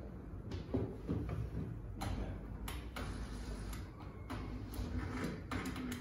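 Scattered light clicks and short scrapes of a plastic squeegee card and fingers on car-door window glass as freshly applied tint film is pressed down and checked, over a low steady hum.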